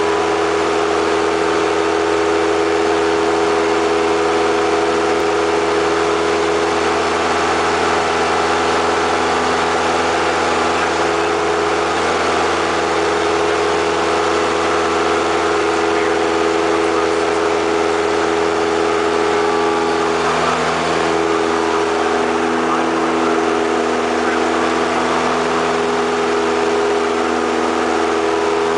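Single-engine light airplane's piston engine and propeller running steadily in flight, heard from inside the cockpit as a loud, even drone. The pitch wavers briefly about two-thirds of the way through.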